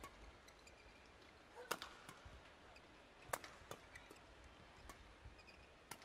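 Badminton rackets striking a shuttlecock during a rally: sharp clicks, the loudest about 1.7 and 3.3 seconds in, with fainter ones later, over a low, quiet arena background.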